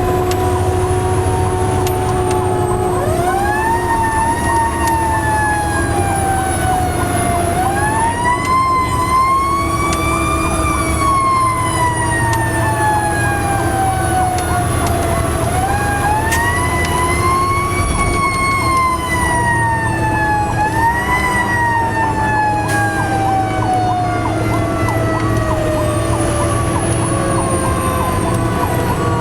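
Fire truck siren wailing: the pitch sweeps up quickly and falls away slowly, again and again, over a faster wavering siren tone and the truck's low engine rumble.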